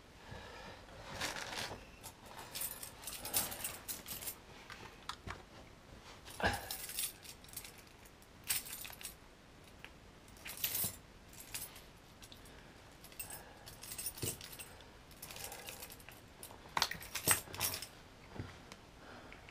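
A bunch of keys on a key ring jangling in the hands in short, irregular bursts, mixed with small clicks from a plastic flip-key fob case being handled and opened.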